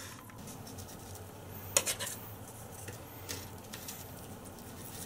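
Light clinks and knocks of kitchen containers and utensils being handled, with one sharper knock a little under two seconds in, over a faint steady low hum. No blender motor is running.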